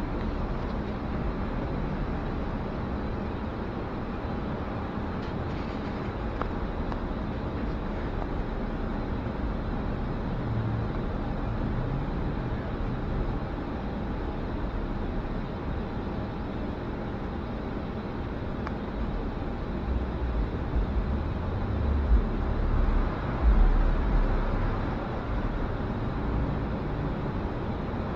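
Interior noise of a city transit bus: a steady low engine and road hum, with a few seconds of heavier low rumbling and jolts about three-quarters of the way through.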